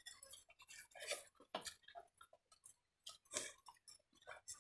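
Near silence with faint, scattered clicks and smacks of a meal eaten by hand: fingers working rice on steel plates, and chewing.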